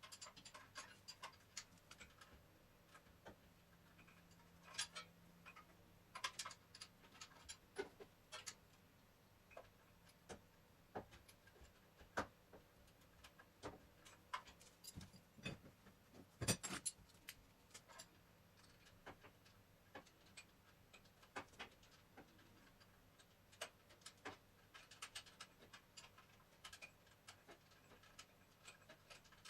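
Faint, irregular clicks and light taps of hand tools and metal parts being handled during alternator work, with a louder cluster of clicks about halfway through.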